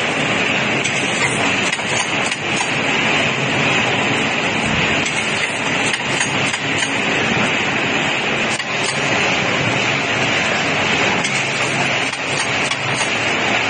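Lollipop-making machine running: a steady mechanical clatter from the chain-driven mould line and stick-inserting head, with a low hum and light clicks throughout.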